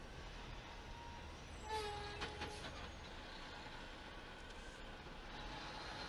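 Traffic noise heard from inside a car moving slowly in city traffic beside a heavy truck. About two seconds in there is a short pitched squeal, followed by a few sharp clicks.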